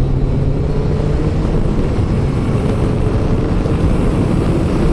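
Motorcycle engine running steadily at cruising speed, with wind rush and tyre noise from the wet road on the bike-mounted camera microphone.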